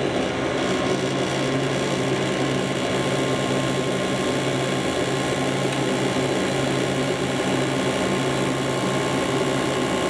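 Gas furnace draft inducer motor running with a steady hum, at the start of the furnace's ignition sequence.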